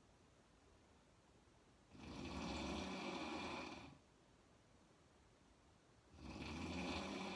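A woman snoring: two snores, the first about two seconds in and lasting about two seconds, the second starting about six seconds in, with quiet between them.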